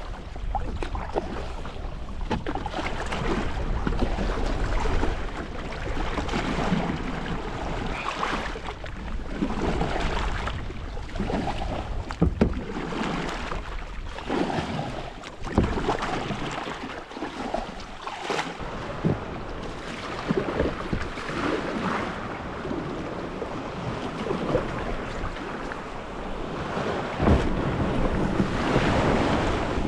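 Paddling a sit-on-top kayak through rough, choppy sea: water splashing and slapping around the hull and paddle in uneven surges, with wind buffeting the microphone. A few sharp knocks stand out, about twelve, fifteen and twenty-seven seconds in.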